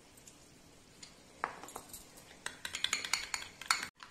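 Steel spoon clinking against a small glass bowl while stirring milk powder into milk. It is near silent at first, with one tap about a second and a half in, then a quick run of clinks near the end.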